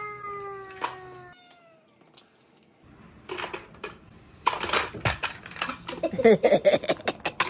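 A toddler's drawn-out "woah", falling slowly in pitch, at the start; then, after a pause, plastic toy cars clacking and knocking against a plastic toy garage playset, with the toddler babbling among the clatter near the end.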